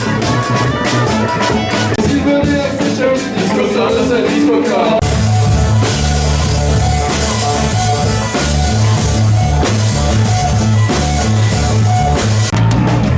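Rock music with drums and guitar; a heavy bass line comes in about five seconds in.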